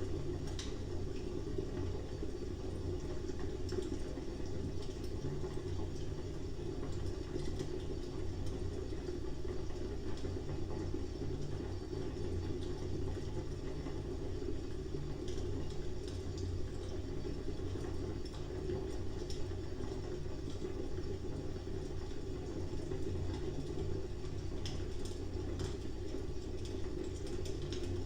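Fire burning steadily: a low rushing of flames with scattered small crackles and pops.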